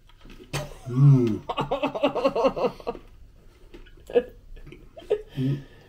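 A person's vocal reaction while tasting a dry dog biscuit: a long "mmm" about a second in, then a run of quick throaty sounds, and a couple of short ones near the end.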